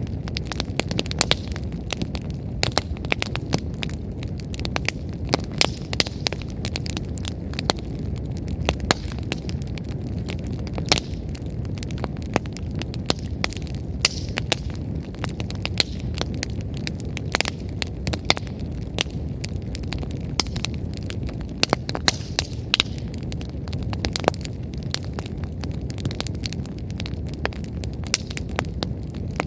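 Wood fire crackling, with many sharp pops every second over a low steady rumble of the flames, burning freshly added firewood.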